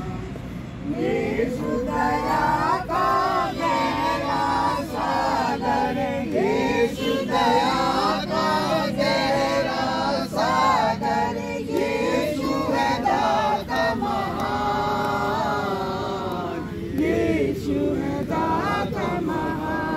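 A small group of men and women singing together, reading the words from their books.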